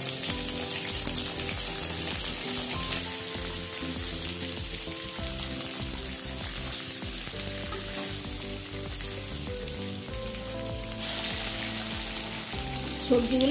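Cauliflower, green beans and carrot sizzling steadily in hot oil in an aluminium kadai, stirred now and then with a slotted spoon, as the vegetables are lightly fried for fried rice.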